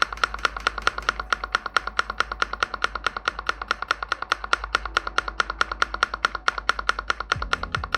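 Lubricated spacebar of a Redragon Fizz K617 mechanical keyboard pressed over and over, a fast, even run of clacks about seven a second.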